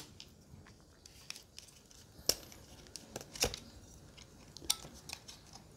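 Faint handling of a plastic pistol-grip RC transmitter in the hands: light rubbing and small plastic clicks, with a few sharper clicks about two, three and a half and near five seconds in.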